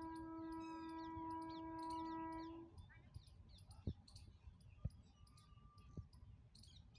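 Faint outdoor ambience: small birds chirping over a steady horn-like tone that cuts off about two and a half seconds in. A few soft low thumps come later.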